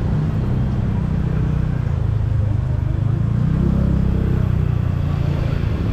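A motor vehicle's engine running with a steady low hum that swells slightly about three and a half seconds in, over street noise.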